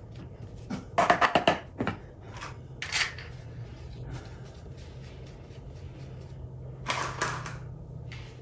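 Metal clicks and clinks of bolts and tools being handled while a dual mass flywheel is fitted to the engine's crankshaft. There is a quick run of clicks about a second in, single clinks around two and three seconds, and another cluster near the end.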